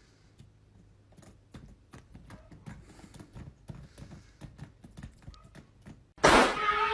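A series of light, irregular taps and clicks, then loud music cutting in suddenly near the end.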